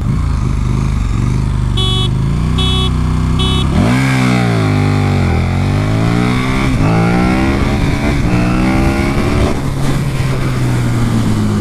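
KTM 1290 Super Duke R's V-twin engine running, then from about four seconds in pulling away with its pitch rising and falling several times before settling to a steady note near the end. Three short beeps sound between about two and three and a half seconds in.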